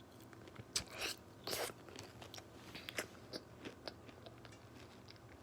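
A person chewing a spoonful of yogurt parfait with granola: soft, scattered crunches, most of them in the first couple of seconds, then fewer and fainter.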